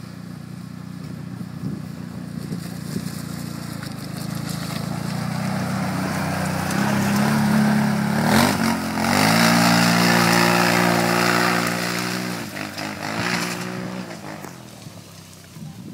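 Can-Am Outlander MAX 1000 ATV's V-twin engine running under throttle as the quad approaches and climbs past, growing louder. Its revs rise a little past halfway and hold steady at the loudest point, then the throttle drops and the engine fades as it rides away.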